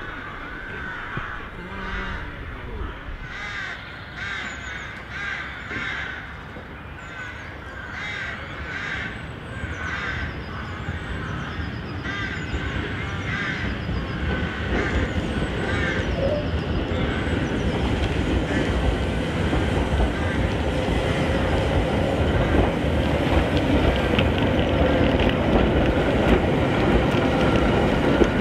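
Crows cawing repeatedly through the first half. An electric mountain tramcar of the Snaefell Mountain Railway then moves off and draws close, its running noise and a steady motor whine growing louder toward the end.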